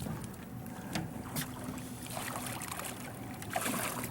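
Steady rush of fast, flooded river water against an anchored boat, with a few light knocks.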